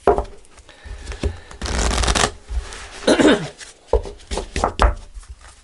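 Deck of oracle cards being handled and shuffled: papery sliding and riffling of cards with small clicks and soft knocks on the table.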